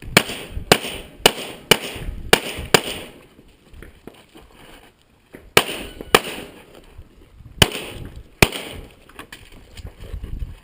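Glock 35 pistol in .40 S&W firing rapid shots: six in about three seconds, then after a pause two more pairs.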